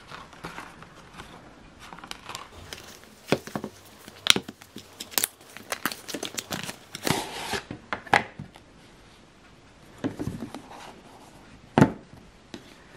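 An eyeshadow palette's packaging being unboxed by hand: stiff cardboard and printed cards rustling and scraping as they are moved, with scattered sharp taps and clicks. The loudest clicks and scrapes come about four, five, seven, eight and twelve seconds in.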